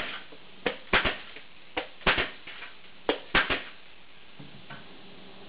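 Bostitch ESD-450S2P pneumatic plier stapler working through stacked corrugated board in three quick cycles over the first three and a half seconds. Each cycle is a single sharp clack as the jaws compress the board, then a double clack as the staple is fired and clinched.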